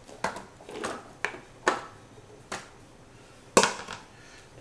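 Chunks of raw onion and carrot dropped and pushed into a disposable aluminium foil roasting pan: a string of about six separate knocks and crinkly clatters on the thin foil, the loudest about three and a half seconds in.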